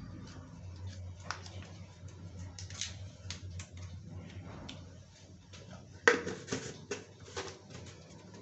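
Whole spices, dried red chillies and bay leaves, crackling and popping in hot oil in a kadai. The pops come irregularly, with a louder cluster about six seconds in.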